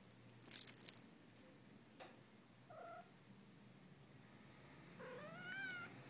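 Cat meowing: a faint short meow about three seconds in, then a longer meow near the end that rises and wavers. About half a second in there is a brief high jingle, the loudest sound here.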